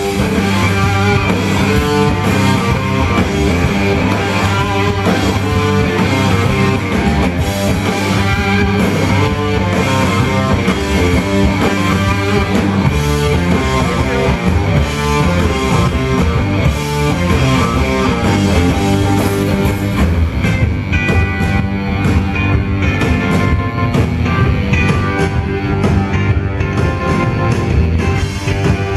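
Live rock band playing loud and without a break through the stage PA, electric guitars to the fore.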